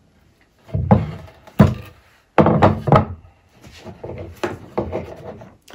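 A wooden cutting board knocking and thunking against a wooden workbench as it is shifted and turned, about six sharp knocks over several seconds.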